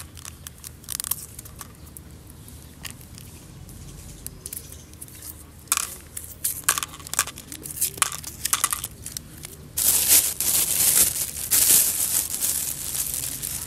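Paper-and-foil wrapper of a Mentos roll being torn and crinkled, with scattered sharp clicks as mints drop into a plastic cup. About ten seconds in, a plastic bag is handled with loud, continuous crinkling that tails off near the end.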